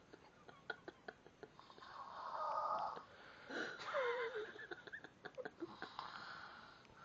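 A young woman snoring while awake: a few snoring breaths, the loudest about halfway through carrying a wavering whistling note. The person filming puts it down to the way her head is resting, not on the pillow.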